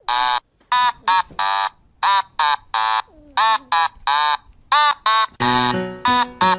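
Music: a melody of short, separate pitched notes, joined about five and a half seconds in by lower held backing notes.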